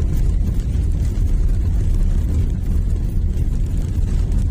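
Toyota Innova Reborn cabin noise while driving on a rough road: a steady low rumble of engine and road noise.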